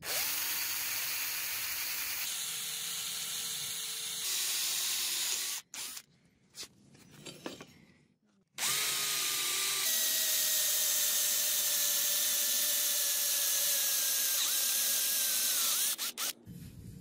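Electric drill boring through a steel sword blank with a twist bit. The motor whine spins up and runs for about five seconds, stops for about three seconds with a few light knocks, then runs again for about seven seconds.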